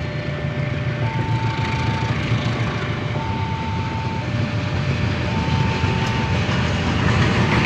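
Railway level-crossing warning alarm sounding, two electronic tones alternating about once a second, over the low rumble of an approaching train that grows louder toward the end.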